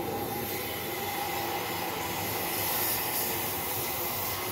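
Compressed-air paint spray gun hissing steadily as it sprays finish onto furniture.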